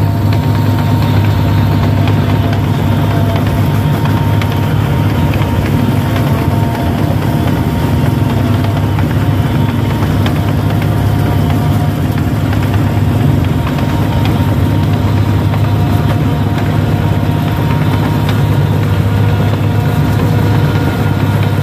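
Combine harvester's diesel engine running steadily as the machine travels along a narrow track: a loud, even low drone with faint steady whining tones above it.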